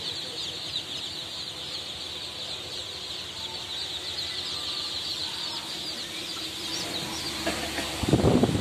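A large crowd of chicken chicks peeping constantly, a dense chorus of short high cheeps. About eight seconds in, a loud rustling clatter of handling close by rises over them.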